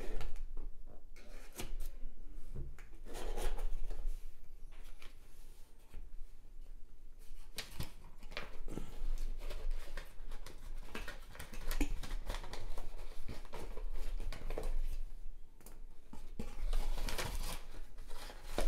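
A small knife slicing through packing tape and cardboard on a shipping box, followed by the box flaps and paper packing being pulled open and handled: a string of short, irregular scraping and tearing strokes with brief pauses between them.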